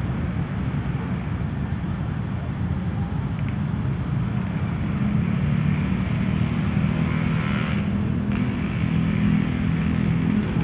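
Steady low rumble of road traffic, growing a little louder in the second half.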